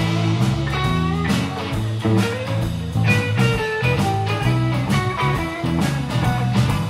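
Live blues band playing: electric guitar lines over bass and a steady drum beat.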